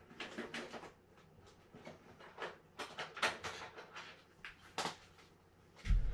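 Scattered clicks and light knocks of small tools and reel parts being handled, then a louder low thump near the end as the fishing reel's side plate is picked up.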